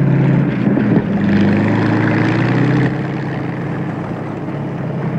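Engine of the Firefly, a tracked heat-shield vehicle, running as it drives: a steady low hum over a noisy rumble. The hum shifts in pitch about a second in, and the level drops a little near three seconds.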